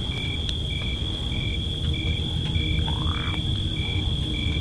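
Crickets at night: one giving a steady high trill, another chirping at an even pace about every 0.6 seconds, over a constant low rumble.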